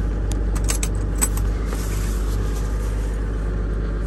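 Toyota Coaster's 4.2-litre 1HD-T six-cylinder turbo diesel idling steadily, heard inside the cabin. Within the first second and a half come several light metallic clicks from the catch and metal trim of a floor panel beside the gear lever as it is handled.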